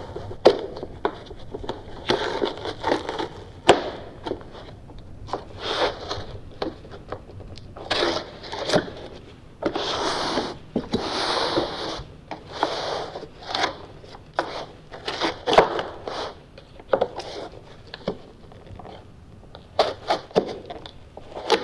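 A utility knife cutting through the adhesive that holds a Tesla Model X HEPA cabin filter in its plastic housing, to loosen the filter. Irregular scraping and crackling from the blade, the filter media and the plastic frame as the housing is handled, with scattered sharp clicks.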